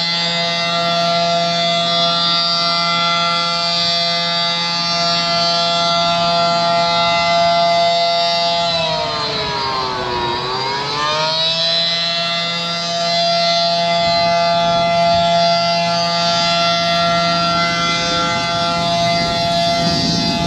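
Fire engine's siren sounding at a steady high pitch. About halfway through it sags lower for a second or so, then climbs back to the same pitch.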